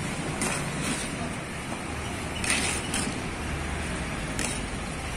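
Metal serving spoon scraping against a large steel rice pot about five times, over a steady hum of road traffic.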